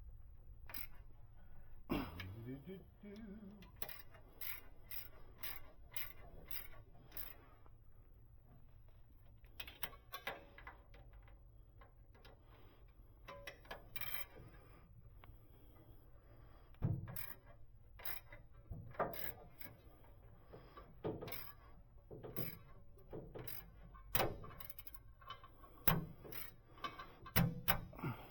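Hand tools and bolts clicking and clanking against metal while the torque converter is bolted up under a car, in scattered sharp clicks with a few heavier thunks.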